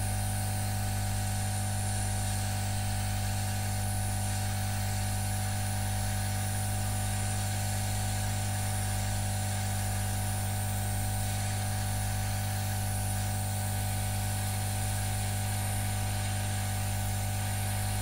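Handheld heat gun running steadily, a blowing hiss over a low motor hum, as hot air is played over a display circuit board to trace a heat-sensitive intermittent fault.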